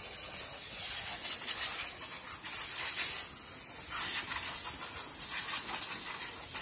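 Compressed air hissing steadily from a blow-gun nozzle on a yellow air hose as it blows metal motorcycle parts clean.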